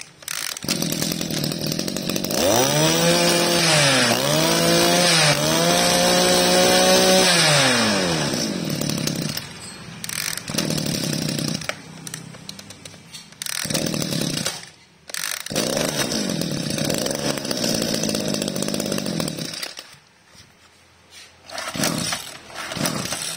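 Small two-stroke engines of used Kioritz/Echo brushcutters pull-started and revved. About two seconds in, one catches and its pitch climbs, dips twice, holds high and then falls away about eight seconds in. After that come shorter spells of running and revving.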